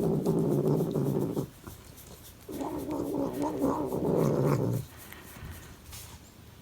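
Domestic cat making a long, low, drawn-out vocal sound as its back is scratched, the weird noise it makes in response to the scratching. It comes twice: one call ending about a second and a half in, and a second from about two and a half seconds to nearly five.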